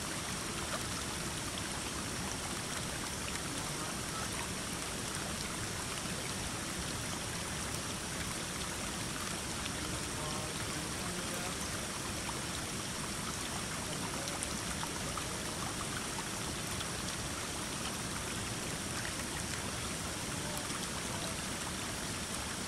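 Steady rush of flowing water from a stream, with no change in level.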